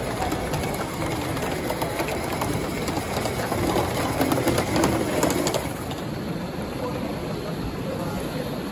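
Gauge 1 live-steam model locomotive, a Rio Grande K-27 No. 463, running past with a rapid mechanical clicking, louder around the middle as it passes. About six seconds in the clicking drops away to a quieter steady background noise.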